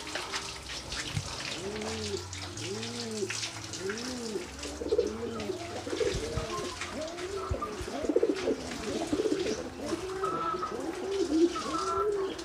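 Racing pigeons cooing: a string of rising-and-falling coos about one a second, with more birds joining from about halfway so that the coos overlap.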